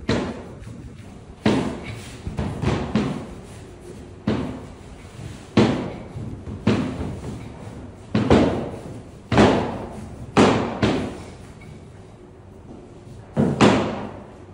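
About a dozen heavy thuds and knocks on a kitchen work surface, at uneven spacing of roughly one a second with a longer pause about two-thirds of the way through, each with a short ring-out.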